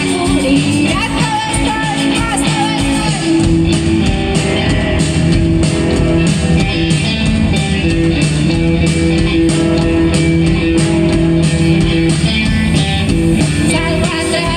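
Live rock band playing through a PA: two electric guitars, electric bass and drum kit. About three and a half seconds in, the band comes in fuller and louder.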